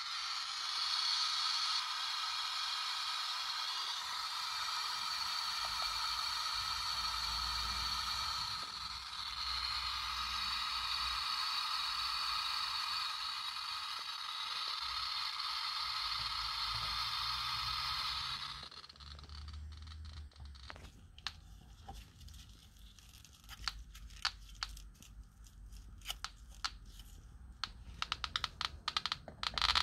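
FH 40 T Geiger counter clicking so fast over pitchblende uranium ore that the clicks merge into a continuous rushing buzz, the sign of a very high count rate. About 18 seconds in it drops to scattered, irregular single clicks, and it speeds up into a dense buzz again at the very end.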